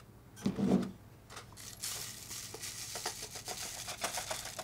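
Ground sesame salt poured from a coffee grinder's steel cup through a paper funnel into a small glass jar: a quick patter of tiny ticks and rustles from about two seconds in. A short, louder rustle of the paper funnel comes about half a second in.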